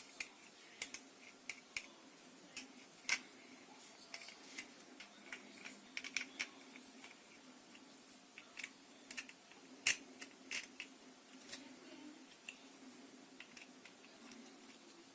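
Irregular light clicks and taps of small hard objects being handled, the two loudest about three seconds in and near the middle.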